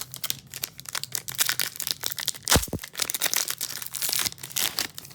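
Foil trading-card packs being torn open and crinkled by hand, a dense run of crackling and crinkling with a louder rip about halfway through.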